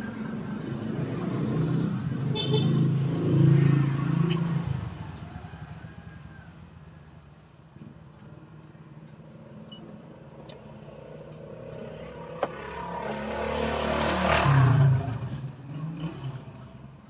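A motor vehicle's engine grows louder and then fades twice, about ten seconds apart.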